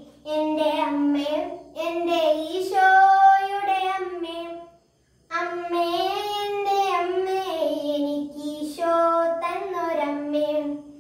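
A boy singing a Malayalam Marian hymn unaccompanied, in long held notes, with a short pause for breath about five seconds in.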